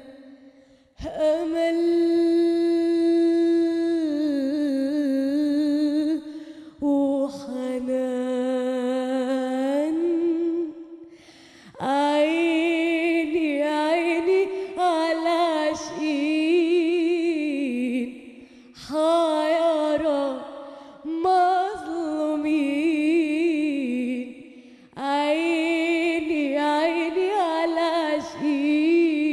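A woman singing solo into a microphone in Arabic style. She sings long drawn-out notes with vibrato and ornamented runs, in several phrases with short breaks between them.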